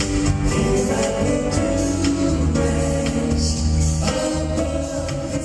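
A live band plays a song with female backing singers, picked up from the audience in a large concert hall.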